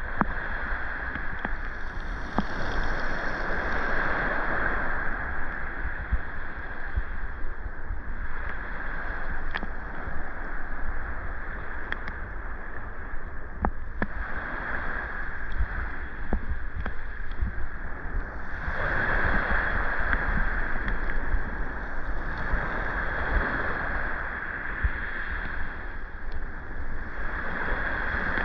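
Sea waves washing onto the beach, swelling and easing every few seconds, with a low wind rumble on the microphone.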